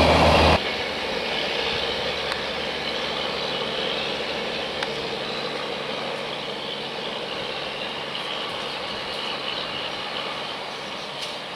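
A passing train's loud running noise stops abruptly about half a second in, leaving a fainter steady rumble that slowly fades as the train moves away.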